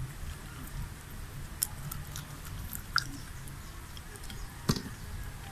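Chewing chicken skin close to the microphone: wet mouth sounds with three sharp clicks, the last near the end the loudest.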